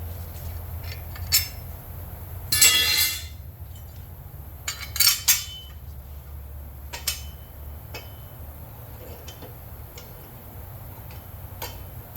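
Metal tools and parts clinking and clattering during mower blade work, with a few sharp clicks and one louder ringing clatter about two and a half seconds in.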